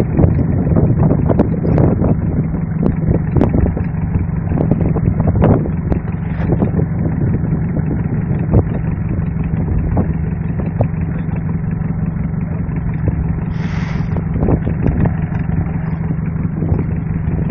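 A fishing boat's engine running steadily, a constant low hum, with scattered knocks from the net being hauled over the wooden hull.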